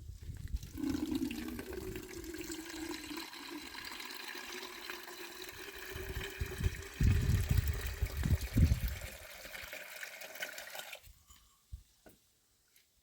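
Water running or pouring in a steady rush that stops suddenly about eleven seconds in, with a few low thumps partway through.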